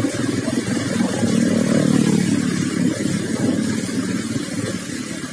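A motor vehicle engine running close by, its pitch rising from about a second in and falling back after about three seconds.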